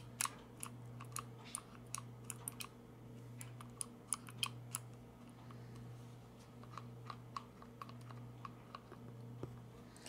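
Hard plastic parts of a Honda snowblower's chute-control joystick housing clicking and tapping as they are handled and fitted together. A quick run of sharp clicks comes over the first few seconds, then sparser clicks later, over a steady low hum.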